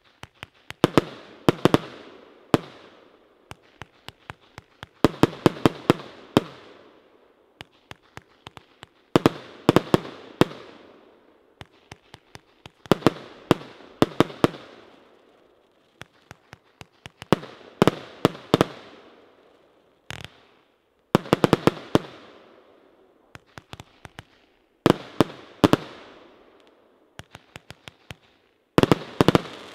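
A 72-shot, 25 mm compound firework cake (Evolution Firework's NOVA) firing. Its shots come as groups of sharp bangs about every four seconds, each group trailing off before the next.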